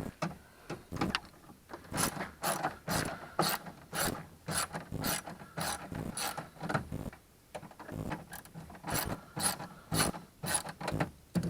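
Hand ratchet driving a 7 mm socket on a long extension, clicking in repeated swings, about two clicks a second with short pauses, as it backs out a door-panel fastener.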